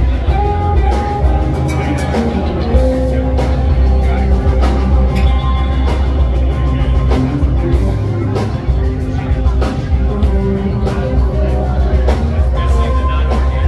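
Live rock band playing at full volume: drum kit hits over bass and electric guitar, heard from the crowd in a club.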